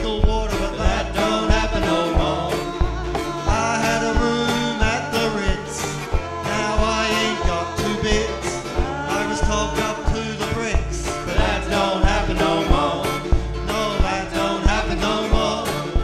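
A live acoustic string band playing a song: upright bass plucking a steady beat about twice a second under strummed acoustic guitar, with voices singing.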